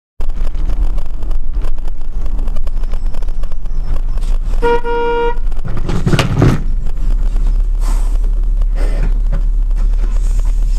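Dashcam recording of a car in traffic: a steady low road and engine rumble, a single car horn blast of under a second about halfway through, and a louder rough noisy burst about a second after it.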